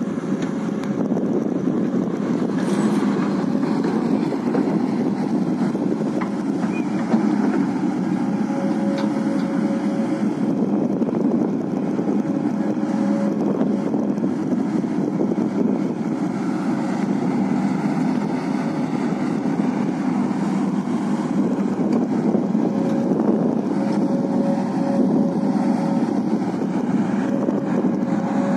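XCMG XE140 crawler excavator's diesel engine running steadily under load while it digs and loads dirt, with a thin whine that comes and goes.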